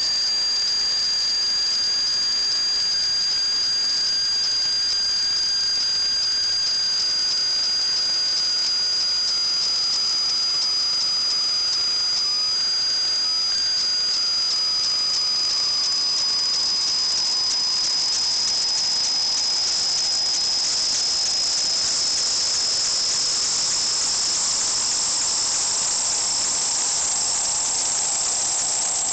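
A steady hiss with high whistling tones. The strongest whistle slowly rises in pitch, while a lower whistle slowly falls.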